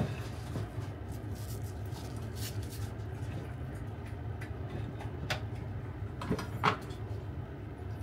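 A few short knocks on a wooden cutting board, from a kitchen knife and greens being handled, over a steady low hum.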